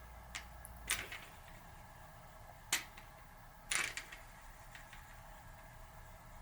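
A few sharp metallic clicks and clinks as bearing-press parts and small metal tools are handled: about four over several seconds, the loudest about four seconds in.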